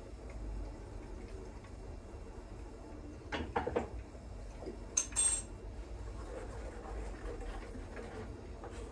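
Kitchen utensils and containers clinking against pots and dishes while a sauce on the stove is seasoned: a few light clinks about three and a half seconds in, then two sharper, louder clinks about five seconds in, over a low steady hum.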